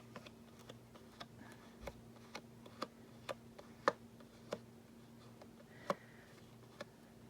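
Light, irregular clicks and taps of paper craft pieces being handled and pressed down on a tabletop, roughly two a second, over a faint steady hum.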